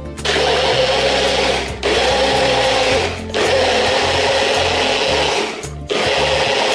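Personal blender running in pulses, its motor whirring through the contents with three short breaks.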